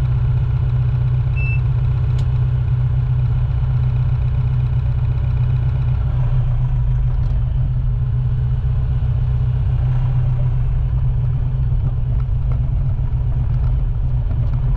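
Compact tractor's diesel engine running steadily, heard from inside the enclosed cab as the tractor is driven, with a deep, even hum. A short faint beep sounds about a second and a half in.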